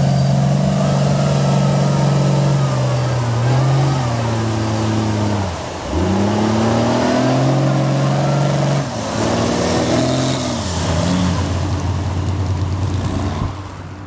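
Mega truck's engine revving hard under load as it churns through a mud hole, its pitch repeatedly rising and falling, with two brief drops where the throttle lets off.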